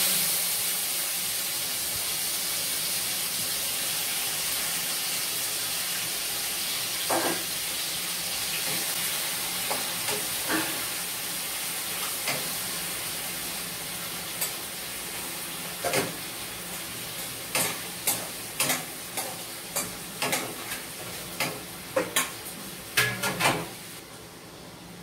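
Prawns sizzling in hot mustard oil in a frying pan; the sizzle starts suddenly as they go in and slowly eases. From about halfway on, a spatula clicks and scrapes against the pan as they are turned, and the sizzle drops away just before the end.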